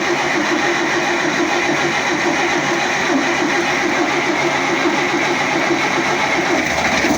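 Mercedes-Benz OM401 diesel engine idling steadily with a dull knock ("глухий стук") running through it, a fault whose cause is not yet known.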